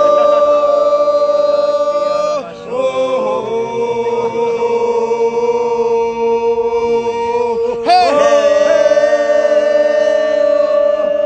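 Several voices holding long, droning tones together in wordless chant-like prayer. The tones break off briefly about two and a half seconds in, and again with a swooping pitch change about eight seconds in.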